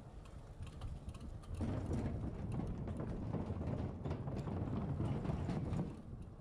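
Ariel Rider Grizzly e-bike rattling and rumbling on the move, with many irregular clicks. It gets louder about a second and a half in and drops back down near the end.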